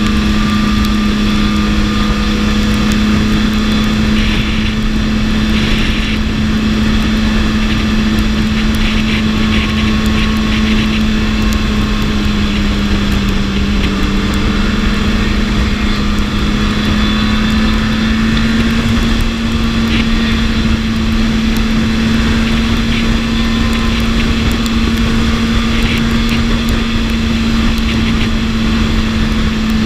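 BMW S1000RR's inline-four engine running steadily on the road, its note sagging slightly about halfway through and then climbing back, over a constant low rush of noise.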